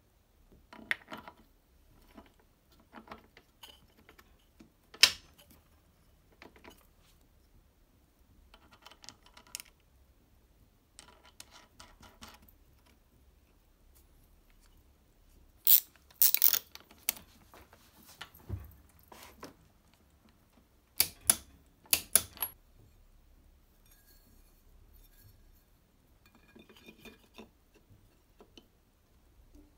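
Scattered metallic clicks, clinks and knocks of metal parts being handled and fitted onto a Vespa engine's rear hub and brake drum, with the sharpest clinks a little past halfway and a few seconds later.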